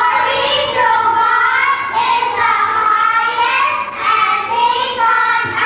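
Children singing a slow melody in held notes, phrase by phrase.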